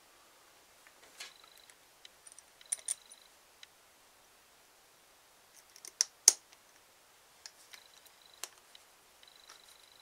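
Small metal clicks and taps as a small screw is fiddled into a hole in a homemade metal joystick assembly, with a pair of sharper clicks about six seconds in.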